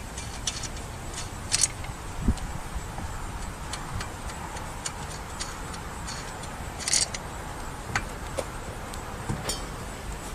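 Metal tools clinking and clicking while a flat tire is changed: irregular sharp clicks and a few short metallic rattles, with a low thud about two seconds in.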